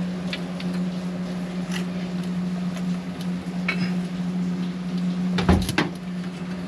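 Light clinks of hand tools on engine parts, then a louder short metallic clatter about five and a half seconds in, over a steady low hum.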